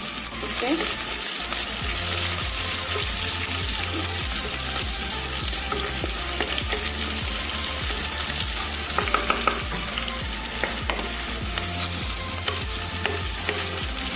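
Shallots, ginger and curry leaves sizzling in hot oil in an earthenware clay pot, stirred with a wooden spatula. A few sharp clicks about nine seconds in.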